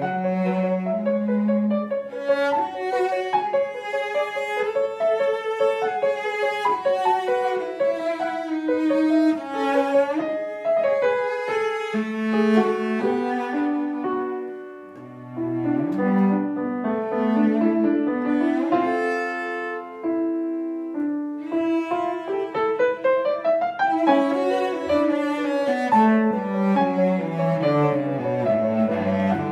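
Solo cello played with the bow, notes moving in quick steps with a held upper note over moving lower notes near the start and end. The playing softens briefly about fourteen seconds in, then resumes.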